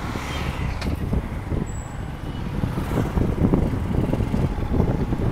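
Wind buffeting the microphone of a moving motorcycle, mixed with road and engine noise as an irregular low rumble.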